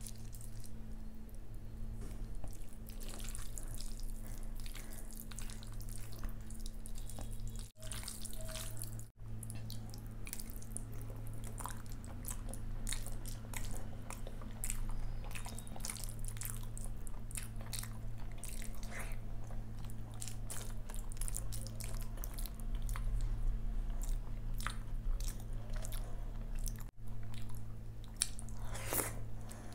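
Close-up wet, squishing sounds of fingers handling and mixing curd rice with fried vegetables, and of mouth chewing, made of many small clicks and smacks over a low steady hum.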